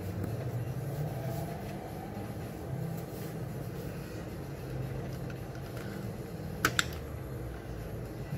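Steady low background hum with two sharp clicks in quick succession about two-thirds of the way through.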